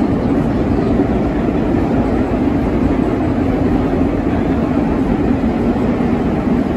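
Vintage R9 New York City subway car running along the track, heard from inside the car: a steady, loud rumble with a constant drone.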